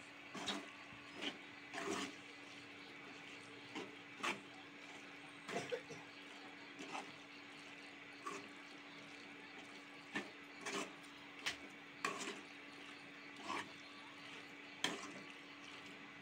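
A steel spoon scraping and knocking against a metal kadai as chicken pieces in masala are stirred, in irregular short strokes about once a second, over a faint steady hiss and hum.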